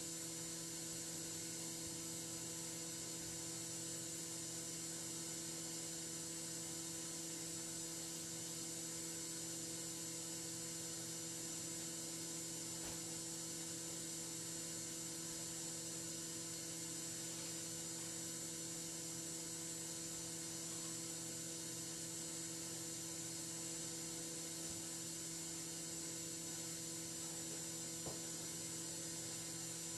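Steady electrical hum with a constant hiss and no other sound: the noise floor of a silent film's transfer, with no soundtrack.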